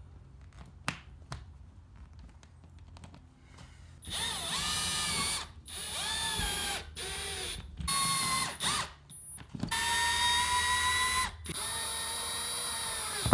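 Cordless drill/driver whining in about half a dozen bursts, driving screws to fasten straps holding metal-clad cable to the wall. Its pitch dips and recovers as each screw bites. Before the first burst, about four seconds in, only a few faint clicks are heard.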